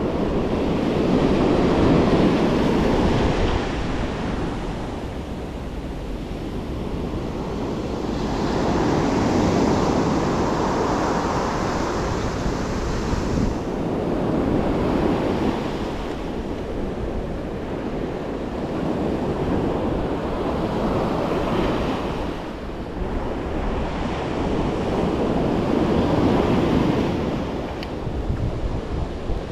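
Ocean surf breaking on a sandy beach, the wash swelling and fading as each wave comes in, about every five or six seconds.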